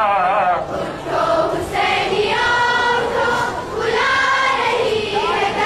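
A chorus of children's voices singing a noha (Shia lament) together in long held notes, phrase after phrase.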